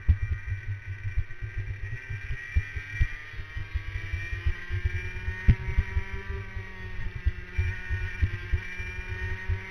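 Racing kart's two-stroke engine at full throttle, its note climbing steadily as the kart accelerates out of a corner down a straight, then levelling off and dipping slightly near the end. Recorded onboard, with heavy low buffeting and knocks over the engine.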